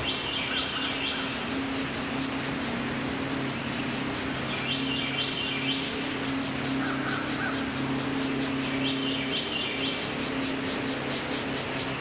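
Pileated woodpecker nestling begging calls at the nest hole: three short bouts of quick, high descending notes about five seconds apart, over a steady low hum.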